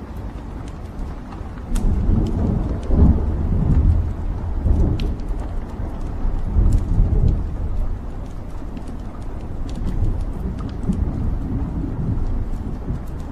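Wood fire burning in a fireplace: a low rumble of flames that grows louder about two seconds in, with scattered sharp crackles and pops from the burning logs.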